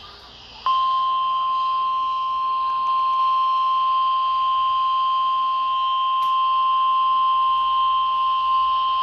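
NOAA Weather Radio's 1050 Hz warning alarm tone: a single loud, steady, high beep that starts a little under a second in and holds without change. It signals that a warning-level alert is about to be broadcast, here a severe thunderstorm warning.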